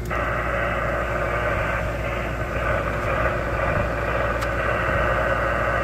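Receiver audio from an Alinco DX-70 HF transceiver tuned to 3.853 MHz lower sideband: steady static and band noise through the radio's narrow speech filter, cutting in sharply at the start. A window air conditioner hums low underneath.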